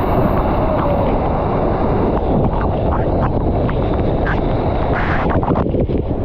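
Large waterfall heard at close range: a loud, steady rush of falling water with wind buffeting the microphone. A few light clicks and taps come in the second half.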